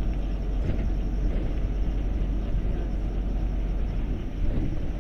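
LiAZ city bus engine and drivetrain running at steady speed, a low, even rumble heard from inside the passenger cabin while the bus is moving.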